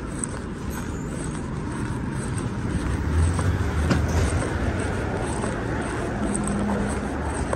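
Street traffic: a car driving past close by on the road, its low rumble swelling about three seconds in.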